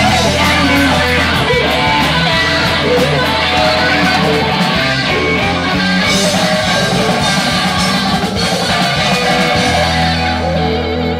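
Live blues-rock band playing: electric guitars over bass and drums.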